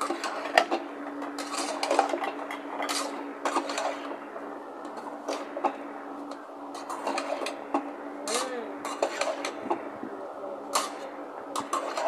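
Metal spoon scraping and clinking against the inside of a metal cooking pot as chopped chayote is stirred, in irregular strokes over a steady low hum.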